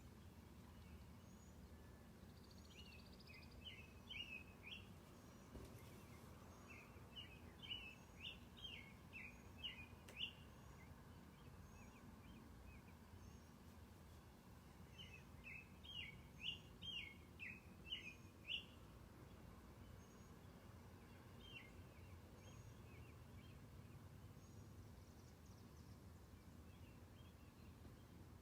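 American robins singing: several bouts of short, clear whistled phrases in quick succession, with pauses between bouts, over a faint steady background.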